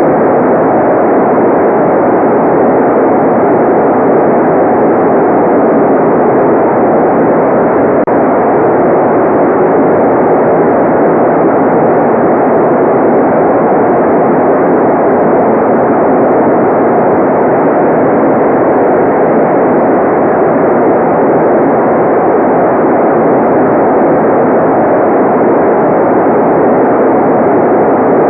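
Steady electronically generated noise for relaxation: an even, dull rush with no high hiss, unchanging throughout.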